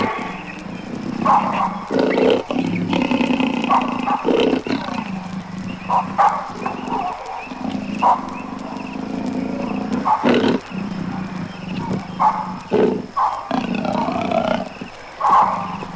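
Wild African animals calling, in an old field recording: short, loud calls come every one to two seconds over a steady background.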